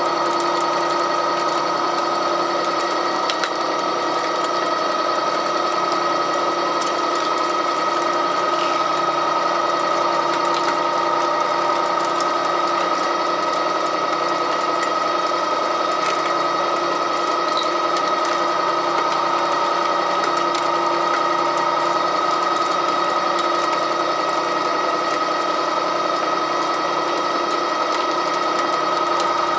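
REX 6590 all-gear pipe threading machine, driven by its condenser motor, running steadily while its self-opening die head cuts a thread on the pipe. It gives a continuous even whine with a few light scattered clicks.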